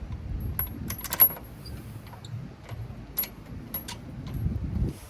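Sharp metallic clinks and taps of steel wheel bolts being handled and started on the wheel hub. There is a quick cluster of clinks about a second in, the loudest of them, and several more scattered after, over a low rumble of handling.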